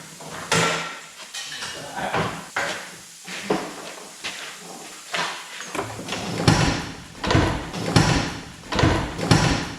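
Irregular knocks and clatter, a few sharp hits a second, turning to heavier, louder thumps from about six seconds in.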